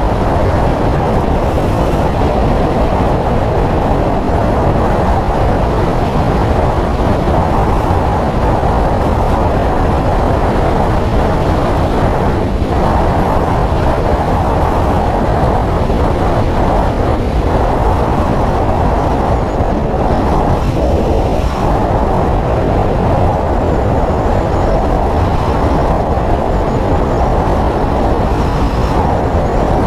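Steady, loud rumble of a vehicle in motion, road and engine noise with no change in pace.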